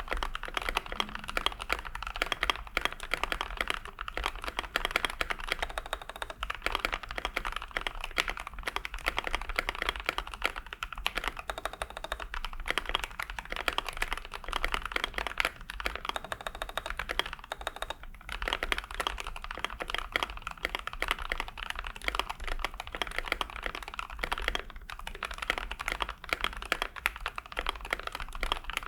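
Fast, continuous typing on a Keychron K8 Pro mechanical keyboard with lubed and filmed Gazzew Boba U4T tactile switches on a steel plate and Akko ASA keycaps. The keystrokes run in a dense rapid stream with a couple of brief pauses.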